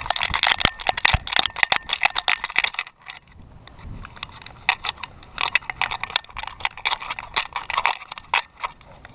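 A dog's collar and the camera mounted on it jingling and rattling as the pit bull runs and moves, with rapid clinking in two bouts separated by a short lull about three seconds in.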